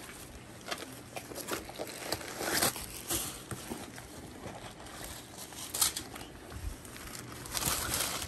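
Intermittent rustling and crinkling of tissue paper and plastic wrapping as a leather backpack is handled, with a few louder crinkles along the way.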